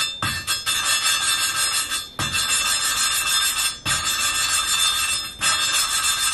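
A Suzuki F10A exhaust valve is being hand-lapped into its seat with a lapping stick, its face rasping against the seat through water-based lapping paste with a metallic ringing. Brief breaks come about every second and a half. The sound is changing as the paste wears out.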